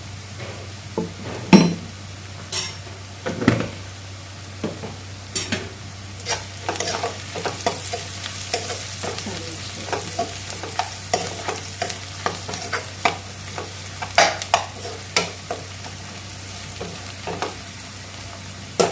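Chicken, onions and curry leaves frying in oil in a kadai, sizzling steadily, while being stirred with irregular knocks and scrapes of the utensil against the pan.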